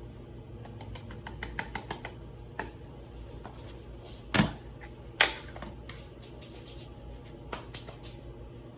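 Plastic toy snow globe being handled: a quick run of light clicks, two louder knocks near the middle, then a few more clicks.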